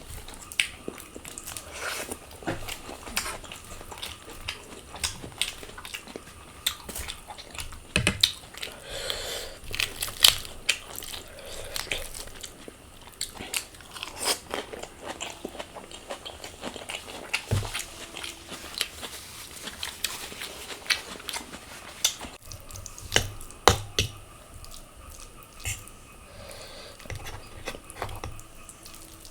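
Close-miked eating: irregular biting and chewing, with sharp crunchy clicks scattered throughout.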